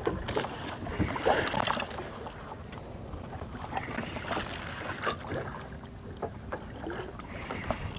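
Water lapping against a small boat with some wind, and scattered light clicks and knocks.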